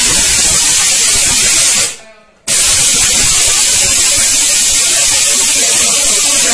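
Orpat 1200-watt mixer grinder running flat out with its small dry-grinding jar, pulverising hard dried turmeric pieces into powder. Just before two seconds in it cuts out and winds down, then starts again at full speed half a second later.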